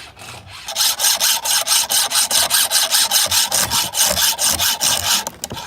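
Chainsaw chain being sharpened with a hand file: fast, even scraping strokes, about six a second, with a short pause near the end.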